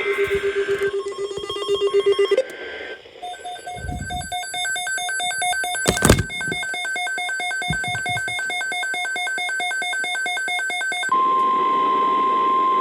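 NOAA Weather Radio emergency alert tones. First a fast-pulsing low beep for about two seconds, then the rapid warbling screech of the SAME digital header data bursts, with a sharp loud pop about six seconds in. About eleven seconds in comes the steady 1050 Hz warning alarm tone.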